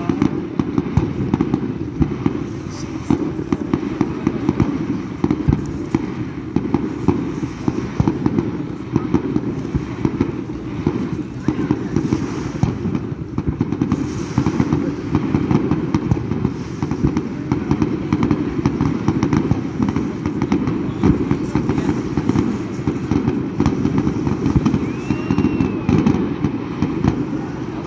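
Fireworks display, with bangs and crackles going off in quick succession and without a pause.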